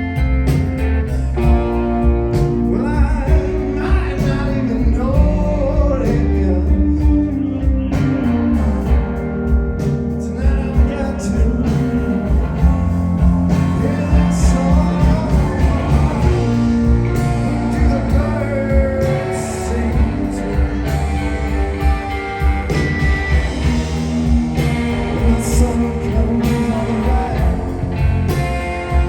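A live band playing a song, with singing over guitar and a steady beat.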